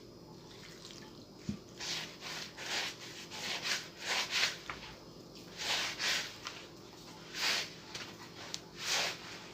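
Hands mixing and working a soft, wet yeast dough in a bowl as milk is worked in: short rubbing strokes in irregular bunches, with a brief knock about a second and a half in.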